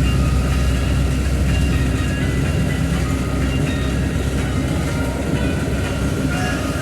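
Steady engine and road rumble heard from inside a moving vehicle's cab, running without a break.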